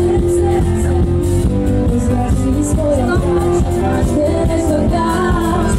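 Live pop music from an outdoor stage, amplified through a PA, with a steady beat and sustained notes. A singer's voice comes in about three seconds in.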